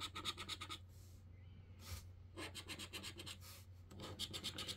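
A scratchcard's coating being scratched off in three short bursts of quick, even strokes, with brief pauses between them.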